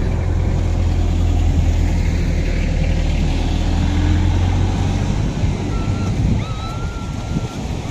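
An SUV's engine running close by, a low steady hum that fades away about five to six seconds in, with wind on the microphone. A few short high chirps come near the end.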